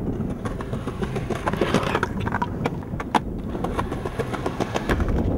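Skateboard wheels rolling over wet tiled concrete: a steady low rumble broken by frequent sharp clicks as the wheels cross the tile joints.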